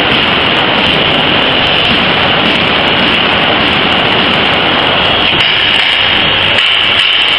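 Corn-filling machine running: a loud, steady mechanical noise.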